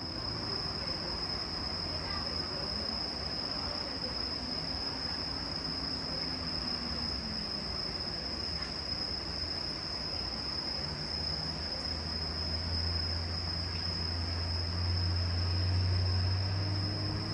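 Insects trilling steadily at one high pitch, over a low rumble that grows louder in the last few seconds.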